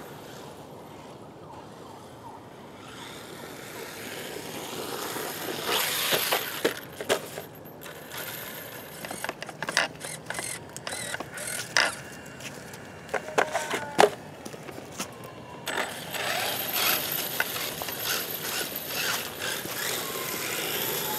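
Brushless electric motor of a HobbyKing Rattler 1/8-scale 4WD buggy running on a 2S battery, its whine gliding up and down in pitch with speed, while the tyres rustle and clatter over dry leaves and hard frozen dirt. A run of sharp knocks and clatters comes in the middle stretch as the buggy bounces over the rough ground.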